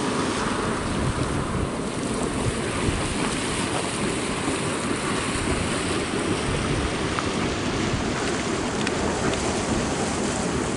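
Steady rushing noise with uneven low rumbling: wind buffeting the microphone.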